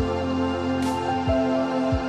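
Background music: sustained chords, with low thuds and a swelling high wash about a second in.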